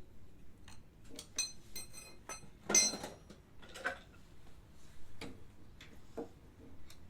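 Irregular metallic clinks and taps of hand tools and small metal parts, a few of them ringing briefly, with one louder clank about three seconds in.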